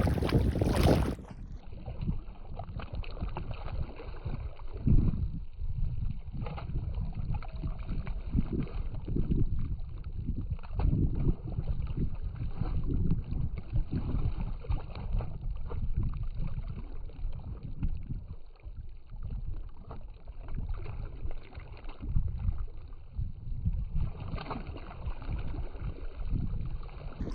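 Wind rumbling on the microphone: a low, uneven noise that swells and drops, with no steady engine tone. It is louder and brighter in the first second.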